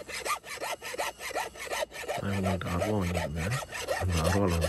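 Hand file scraping back and forth across the edge of a hand-forged iron blade to sharpen it, in quick even strokes about four a second. From about halfway through, a low voice sounds over the filing.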